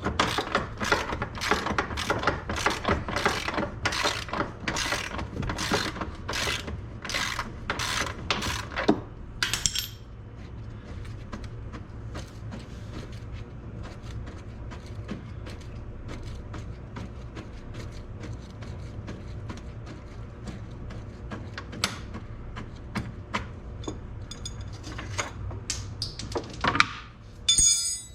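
Ratchet wrench being cranked in quick strokes to back out a suspension bolt, clicking about twice a second for roughly ten seconds and then stopping. After that, only a few scattered tool clicks and a short clatter near the end.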